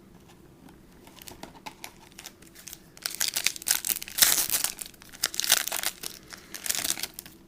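A baseball card pack wrapper being torn open and crinkled. Faint rustling at first, then loud crinkling and tearing for about four seconds from three seconds in.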